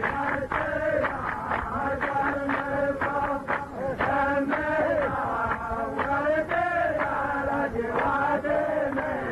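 Men's voices chanting a verse of Nabati poetry together in long, drawn-out sung phrases, in the manner of a Saudi muhawara chorus repeating the poet's line.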